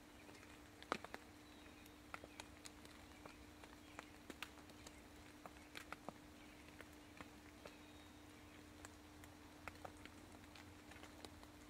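Near silence in woodland: faint, irregular ticks and taps in the leaf litter over a steady low hum.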